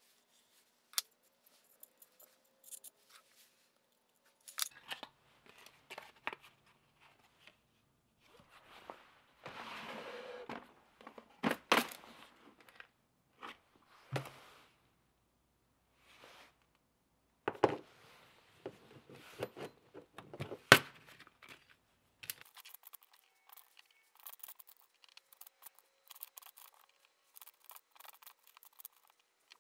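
Small metal parts and hand tools handled on a workbench: scattered clicks, taps and scrapes, with a short rustling stretch. From about two-thirds of the way in, a steady clinking rattle as fingers sort through a tin of small steel Woodruff keys.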